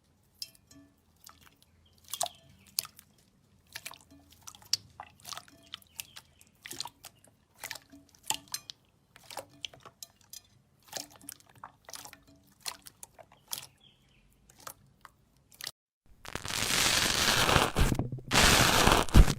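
Slime being squeezed and pressed by hand, making irregular small crackles and pops. About three seconds before the end a much louder, dense crackling starts.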